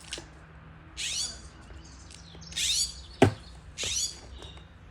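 Blue jay giving three harsh scolding calls about a second and a half apart, the alarm calls of a jay mobbing a cat. A single sharp click, the loudest sound, comes between the second and third calls.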